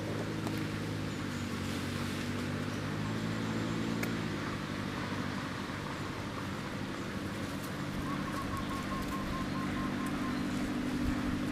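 A motor engine running at a steady pitch over outdoor background noise. It fades a little in the middle and comes back stronger near the end.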